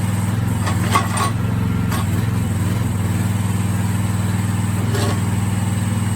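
Mini excavator's small engine running steadily under work, with a few sharp knocks and cracks as the bucket breaks up concrete, the loudest about a second in.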